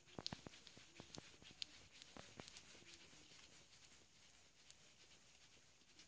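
Faint, irregular small clicks and taps of a pet conure pecking and shuffling about on a hard desktop.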